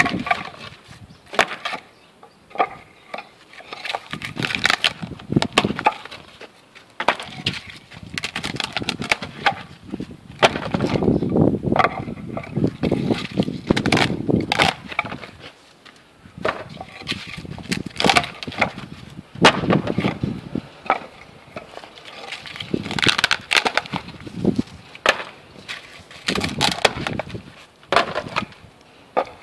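Cast tiles being released from their moulds: irregular knocks, taps and cracking sounds as the moulds are struck and the tiles come free.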